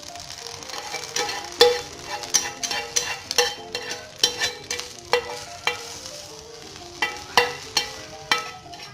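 A serving utensil clicking and scraping against a hot pan as stir-fried instant noodles are lifted out, in irregular sharp taps about twice a second, over a light sizzle from the pan. Soft background music runs underneath.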